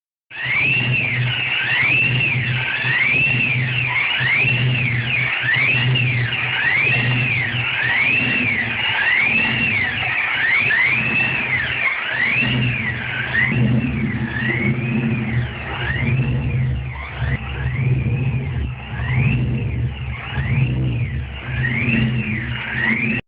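Ford Thunderbird engine with a Vortech supercharger running at a rough idle, the supercharger whine rising and falling about once a second as the idle hunts up and down.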